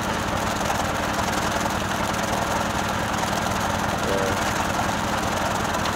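Stationary single-cylinder diesel engine running steadily under load, driving a belt-driven flywheel chaff cutter as green fodder stalks are fed in and chopped.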